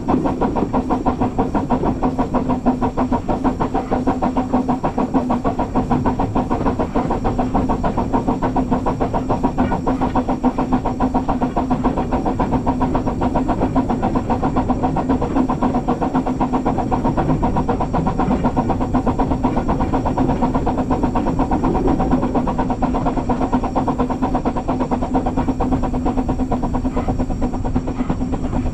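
Narrow-gauge steam tank locomotive No. 7 'Tom Rolt' running along the line, heard from on the engine itself: a steady, fast, even beat over a constant low hum, with a little steam hiss.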